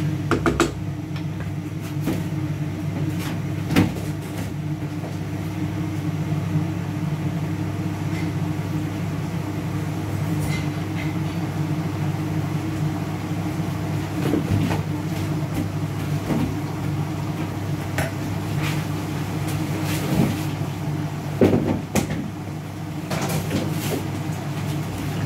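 Kitchen clatter: bowls, cans and utensils knocked and set down now and then, over a steady low mechanical hum from a kitchen appliance.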